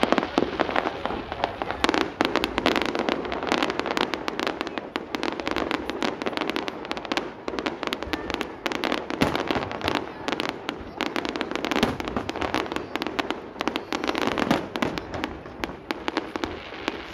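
Aerial fireworks display in a dense barrage: rapid bangs and pops of bursting shells, many each second, without a pause.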